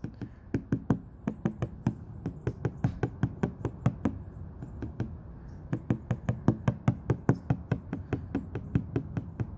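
Rapid light tapping on the windshield glass around a chip under repair, about four to five taps a second, done to work trapped air bubbles out of the crack while the repair kit holds it under vacuum.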